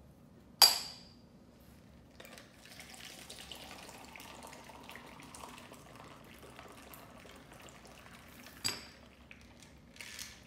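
Metal cocktail shaker's cap coming off with a sharp ringing clink, then shaken iced coffee pouring through the shaker's strainer into a plastic cup for several seconds, with another metallic clink near the end.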